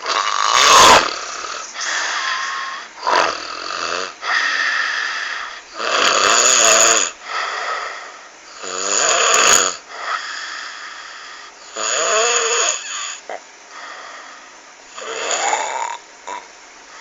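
A person snoring with a croaking, frog-like sound: a rough snore every two seconds or so, some of them wavering in pitch.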